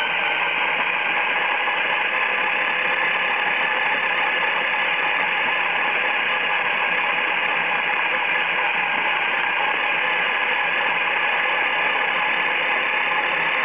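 RC monster truck's motors and gear drivetrain whining steadily under load as it tows a sled carrying a child of about 40 pounds, heard close up from a camera mounted on the truck.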